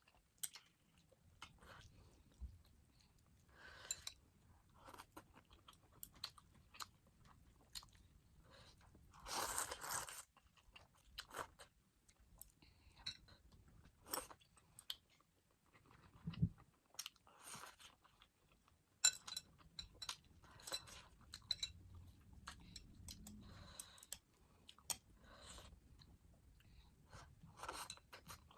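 A person eating spicy ramen with chicken sausages, close to the microphone: steady chewing with short crunchy bites and mouth clicks, and louder bites about 4 seconds and 10 seconds in.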